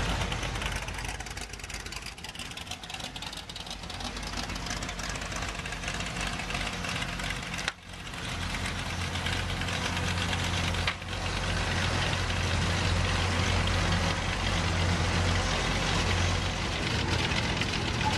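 Car engines idling, with a steady low rumbling note that grows stronger after a brief break about eight seconds in.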